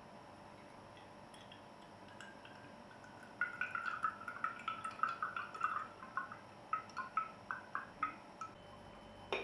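Tea poured in a thin trickle into a small cup, starting about three seconds in and breaking up into separate drips toward the end.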